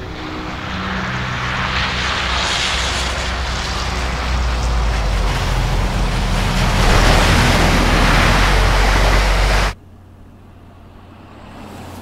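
A loud rushing noise over a low steady hum swells for about eight seconds, then cuts off abruptly, leaving only a faint low hum: a rising sound-effect build in a film soundtrack.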